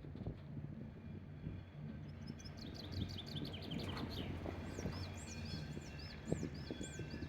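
A small bird singing high above a steady low hum. First comes a quick, falling run of high notes, then a series of high arched chirps at about two a second.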